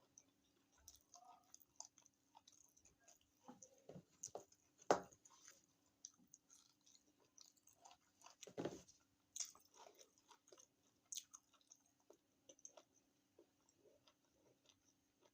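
Close-miked mouth sounds of someone eating: soft wet chewing and smacking with small clicks, and two louder bites, about five seconds in and just before the nine-second mark.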